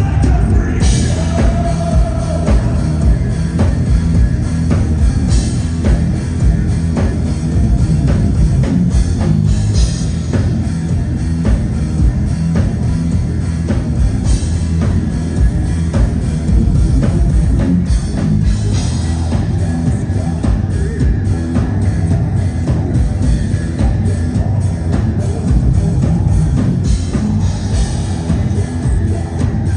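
Heavy metal band playing live at full volume, with pounding drums and guitars.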